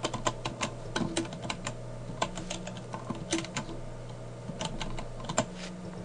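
Typing on a computer keyboard: irregular key clicks as a file name is typed, over a faint steady low hum.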